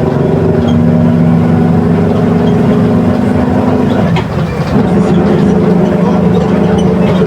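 Mercedes-Benz OF 1721 BlueTec 5 bus running under way, its engine and drivetrain droning steadily with a growling differential. The sound dips briefly about four seconds in, then picks up again at a slightly different pitch.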